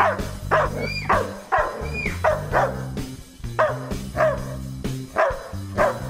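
German Shepherd barking repeatedly, about a dozen sharp barks, each dropping in pitch, with a short pause near the middle. Background music with steady low notes runs underneath.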